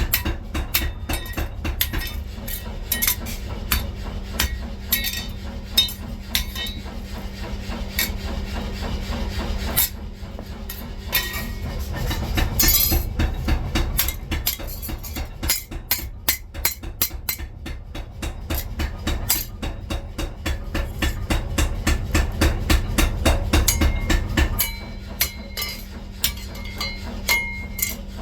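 Rapid, even hammering on steel, about five strikes a second, over a steady machine hum.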